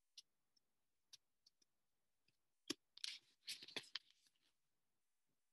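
Faint handling noise close to the microphone: a few scattered clicks, then a short burst of rustling and knocks about three seconds in, as a hand is moved at the camera and taken away.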